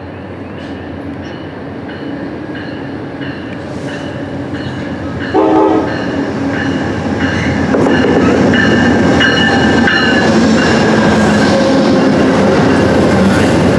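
An Amtrak GE Genesis diesel locomotive approaches and passes close by with its bell ringing steadily, about two strokes a second. It gives one short horn blast about five seconds in. Then the rumble of its double-deck Superliner passenger cars rolling by grows louder, with some faint wheel squeal.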